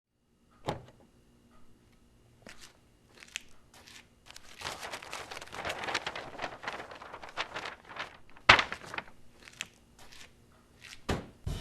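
Irregular crunching and crinkling noises, sparse at first and denser in the middle, with one loud sharp knock about eight and a half seconds in.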